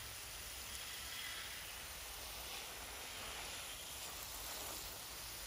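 Garden hose nozzle spraying a fine mist of water over freshly planted soil, a steady soft hiss like light rain.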